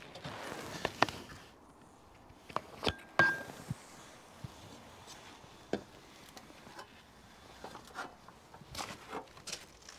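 Clicks and knocks of a glass pane being worked free of an aluminium greenhouse roof frame and lifted out, the sharpest about one and three seconds in, one of them with a brief ring. Lighter knocks and scuffs follow.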